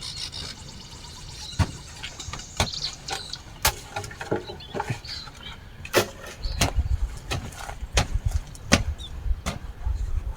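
Scattered sharp clicks and knocks, about a dozen at irregular intervals. Low, gusty rumbling comes in about six seconds in.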